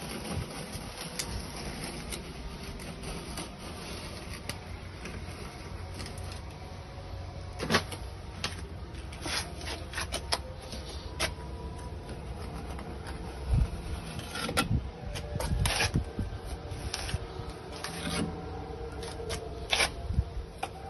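Building work on a concrete piece: scattered sharp knocks and clicks with some scraping, over a steady low rumble and faint hum.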